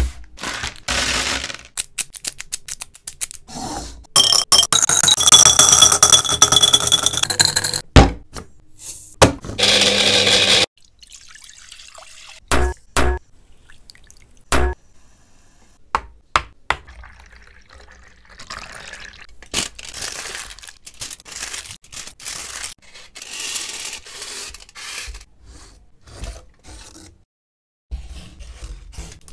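A string of food-preparation sounds: a sweets packet and wrappers handled, liquid poured and splashing in a bowl, and scattered sharp clicks and taps.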